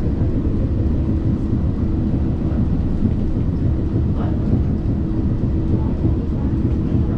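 Inside the cabin of a BTS Gold Line automated people mover (Bombardier Innovia APM 300, rubber-tyred) running on its elevated concrete guideway: a steady low rumble with a constant hum.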